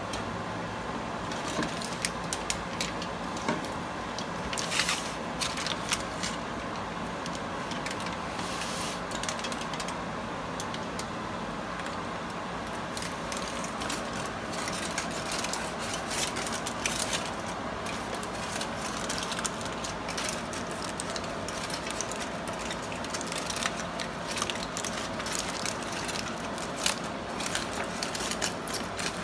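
Aluminium foil crinkling and crackling in irregular bursts as it is folded and crimped by hand around stuffed mushrooms, over a steady background hum.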